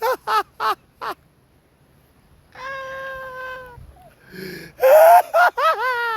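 A man sobbing: a string of short, rising, high-pitched sobs, a long held wail, then louder catching sobs near the end.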